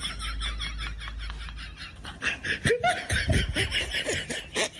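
A person laughing hard, in a quick, high-pitched run of 'ha-ha' sounds that keeps going almost without a break.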